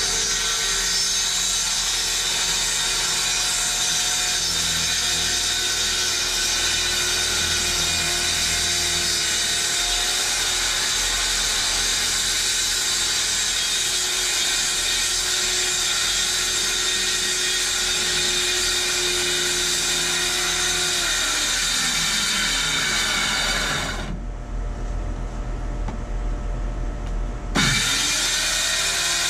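Corded circular saw running and cutting through 3/8-inch plywood, a steady high motor whine mixed with the noise of the blade in the wood. About 21 seconds in the saw winds down, and after a pause of a few seconds it starts up again near the end.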